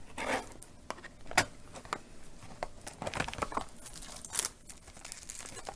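Plastic shrink-wrap being torn and peeled off a trading-card box, crinkling in irregular bursts with a few sharper crackles.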